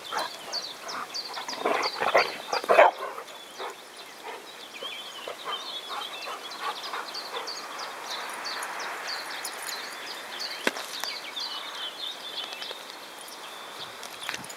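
Dogs barking and yipping in play, loudest in a quick burst of barks about two seconds in, then quieter.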